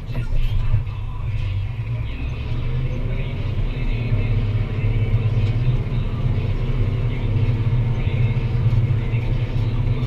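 Deutz-Fahr Agrotron 165 MK3 tractor's six-cylinder diesel engine running steadily under load while pulling a plough, a deep, even rumble.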